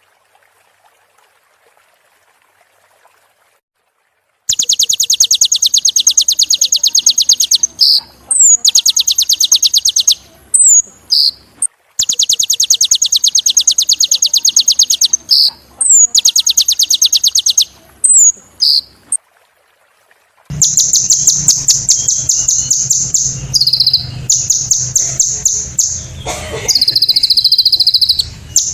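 Kolibri ninja sunbird singing: long, very rapid high-pitched trills of a few seconds each, broken by short sharp notes that slide downward. The song starts about four seconds in after a near-silent start and pauses briefly about two thirds of the way through.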